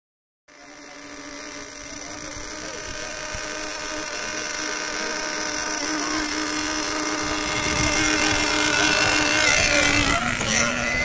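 Engines of radio-controlled racing boats running flat out on the water, a steady high-pitched buzzing drone that fades in and grows louder, dropping in pitch about ten seconds in.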